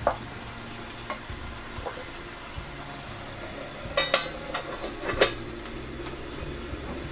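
Cookware clatter: a wooden spoon knocks against a pot during stirring, then metal pot and pan lids clink sharply several times about four to five seconds in, the loudest sounds, with a short ring after each.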